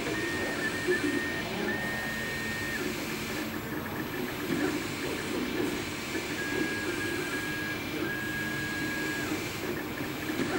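MakerBot 3D printer printing: its stepper motors whine in short, level tones that start, stop and change pitch as the print head moves, over a steady fan whir.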